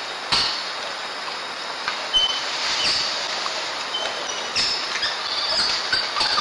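Rainforest ambience: a steady hiss of forest noise with a few short high chirps and several brief soft knocks and rustles.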